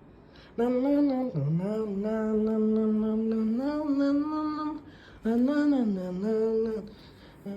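A single voice sings a slow tune without recognisable words, holding long notes, in two phrases with a short break in the middle.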